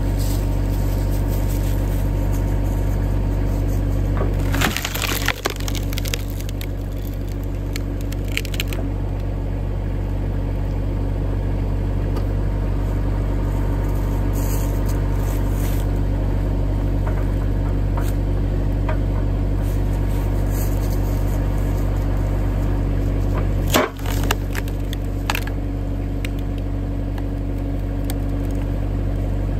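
Tractor engine running steadily while its hydraulic log splitter drives a wedge down through a large round of wood. The wood gives sharp cracks as it splits, in a cluster about five seconds in and again with one loud crack near 24 seconds.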